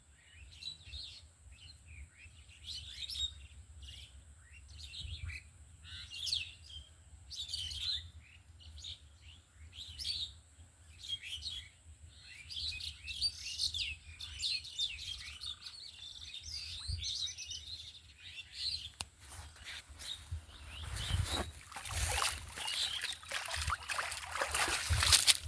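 Small birds chirping in quick, repeated short calls, with a low steady rumble underneath. Over the last few seconds a louder rushing noise builds and peaks just before the end.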